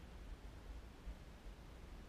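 Faint, uneven low rumble of wind buffeting an action camera's microphone over a soft hiss, with no distinct paddle strokes.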